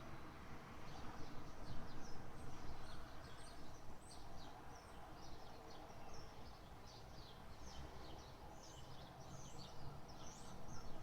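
Small birds chirping and twittering in quick, repeated short calls over a steady low background rumble.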